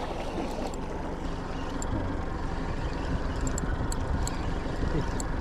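A boat's motor running steadily at slow trolling speed, with water noise around the hull and a few faint high ticks.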